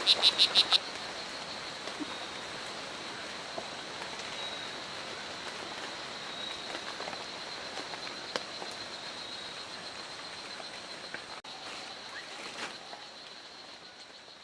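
Male strawberry poison dart frog calling, a rapid buzzing train of chirps about seven a second that stops under a second in. After it, steady rainforest ambience with a thin, steady high-pitched tone and a few faint ticks, fading near the end.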